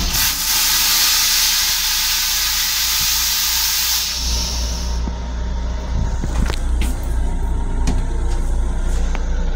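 LIRR M7 railcar toilet flushing: a loud hiss of rinse spray that starts suddenly, lasts about four seconds and trails off about a second later, over the railcar's steady low rumble. A few clicks and knocks follow near the end as the toilet lid is handled.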